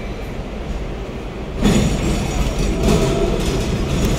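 Hong Kong double-decker tram running, heard from on board: a steady low rumble, then about a second and a half in the steel wheel-on-rail noise suddenly gets louder as it crosses a junction of branching tracks.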